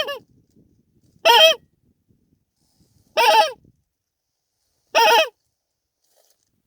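Goose honking: four short, loud, ringing calls about two seconds apart, each a quick double note.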